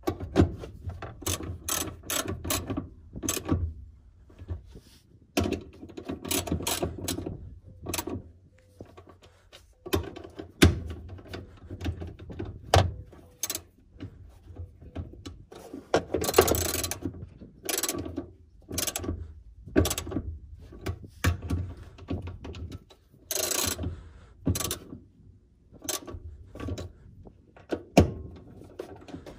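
Small ratchet wrench clicking in short, irregular runs as the nuts holding a fuel pump assembly to the fuel tank are tightened. Between the runs there are scattered knocks of metal parts being handled.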